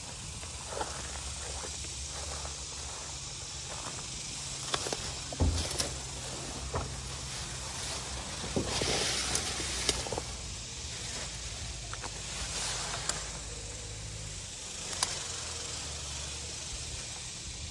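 Footsteps through dry grass and weeds, with scattered crunches and clicks. About nine seconds in, leafy plants rustle as they brush past. Throughout, a steady high hiss runs in the background.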